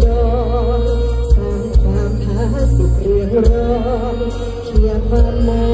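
Live Isan band music through a big stage sound system: a wavering sung melody over heavy bass and scattered drum hits.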